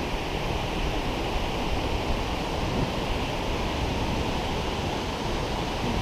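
Steady rush of river water pouring over a low dam and running in rapids past the kayak.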